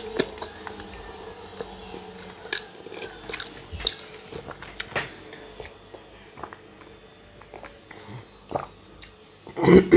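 A person chewing a mouthful of macaroni with fried pork close to the microphone. Scattered short wet clicks and bites come through the first half, then it goes quieter.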